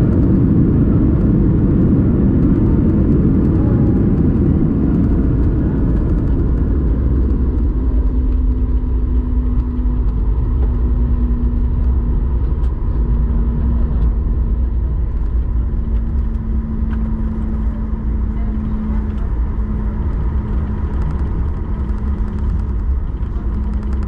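Cabin noise of a Boeing 737 MAX 8 with CFM LEAP-1B engines slowing on its landing rollout along a wet runway. A heavy rumble of engines and wheels eases over the first several seconds, then gives way to a steadier, quieter hum with a low steady tone as the jet slows toward taxi speed.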